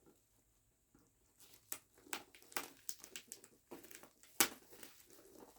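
Bubble wrap and packing tape crinkling and crackling as they are pulled at by hand, in scattered short crackles starting about a second and a half in, with one sharper, louder crack a little over four seconds in.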